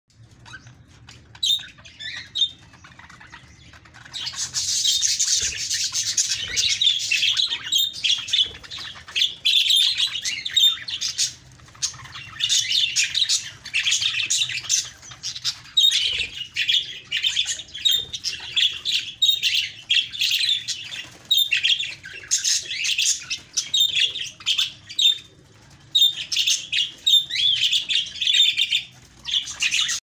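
A group of budgerigars chirping and warbling. A few scattered calls open the sound, then continuous high chatter takes over about four seconds in, with a few brief lulls.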